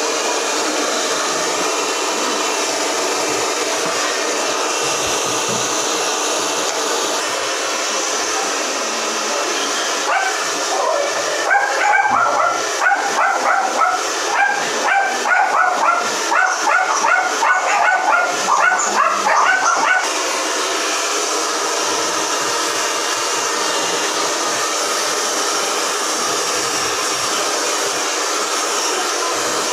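Handheld hair dryer blowing steadily. About ten seconds in, a dog starts barking, about two barks a second, and stops after some ten seconds while the dryer keeps running.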